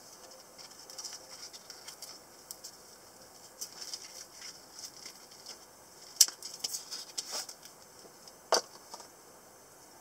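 Nylon knife sheath being handled, with fabric rustling and small scratches. About six seconds in comes a sharp click as the plastic side-release buckle is unclipped, then a run of smaller clicks and one more sharp click a couple of seconds later.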